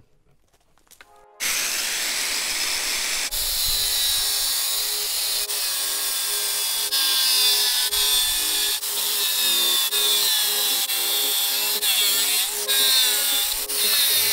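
Angle grinder starting up abruptly about a second and a half in and cutting into the metal end of an electric-car battery module. It runs loud and steady, its whine sagging and recovering each time the disc bites.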